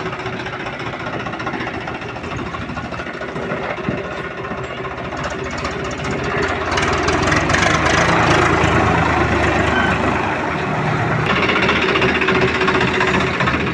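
Diesel tractor engine running, growing louder about six seconds in as it pulls away.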